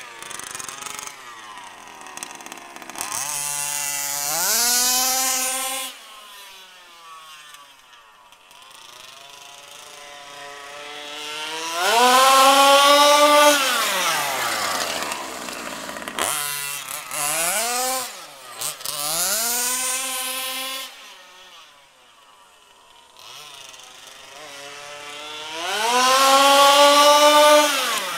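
Zenoah G320 two-stroke engine with a V2 Dominator exhaust, in an HPI Baja SS 1/5-scale RC buggy, revving up and down in repeated high-pitched passes as the car accelerates and slows. The loudest full-throttle runs come near the middle and near the end. The owner says it was running slightly lean while he tested the carburettor's high-speed adjustment.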